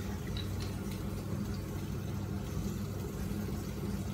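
Steady low mechanical hum of a kitchen appliance, with a few faint ticks from hand work over it.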